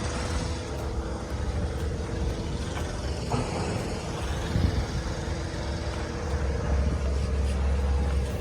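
An engine running steadily: a low rumble with a steady hum, and a short knock about three seconds in.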